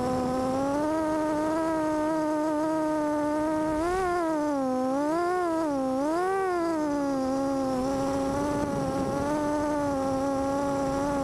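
FPV quadcopter's motors and propellers whining, recorded by its own onboard camera. The pitch holds fairly steady, then swoops up and down three times in the middle as the throttle changes.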